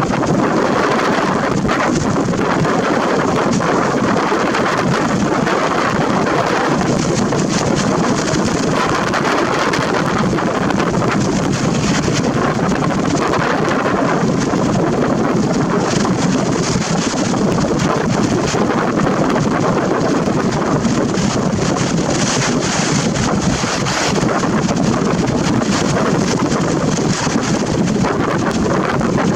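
Wind buffeting the camera's built-in microphone: a loud, steady rushing noise that swells in gusts every few seconds.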